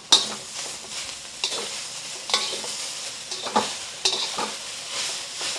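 Asparagus, onion and black beans sizzling in a hot wok, stirred with a metal spatula that scrapes and clanks against the pan about every second, the first stroke the loudest.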